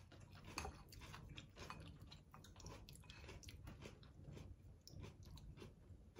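Faint chewing of a beef rice bowl (gyudon), heard as many small, closely spaced mouth clicks.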